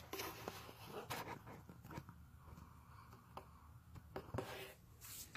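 Faint rustling and scattered clicks and knocks from a camera being handled close up, with the loudest rustle near the end.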